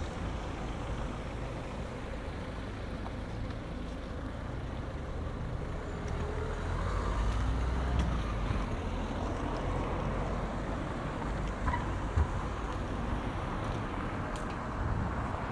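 Town street traffic: a car drives by close at hand, its engine and tyre rumble swelling in the middle and then fading, over steady street background noise. A short sharp knock sounds near the end.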